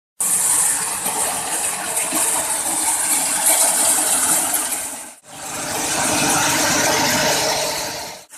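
Peanut sheller machine running, with a steady hum and a dense rattle as peanut pods are fed into its hopper. The sound drops out briefly about five seconds in.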